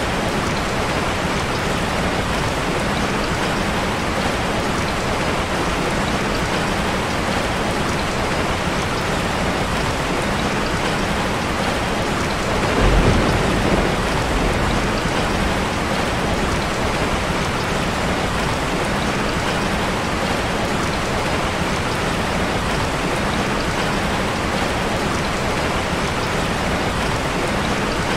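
Steady rain falling, with a short low rumble of thunder about halfway through.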